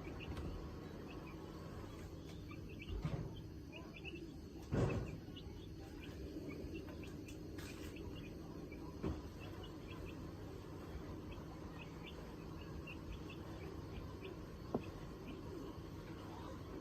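Call ducks giving soft, short peeping chirps again and again, with a few brief knocks, the loudest about five seconds in.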